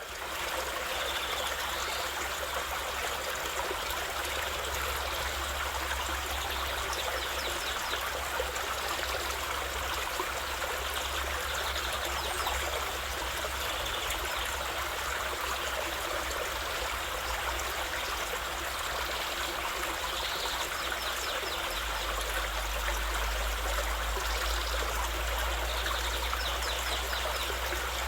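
Waterfall: a steady rush of falling water with a low rumble beneath, the rumble growing a little louder about three-quarters of the way through. Faint bird calls come through every few seconds.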